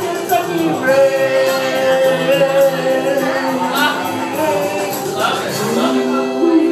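A man singing into a handheld microphone over a karaoke backing track, with long held notes.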